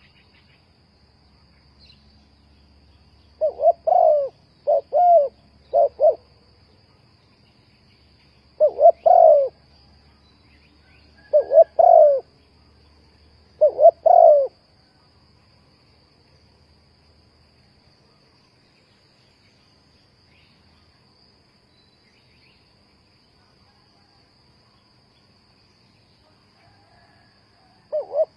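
Spotted dove cooing in short phrases of two to four notes, four phrases in the first half, then a long pause before another phrase begins at the very end. A faint steady high hiss runs underneath.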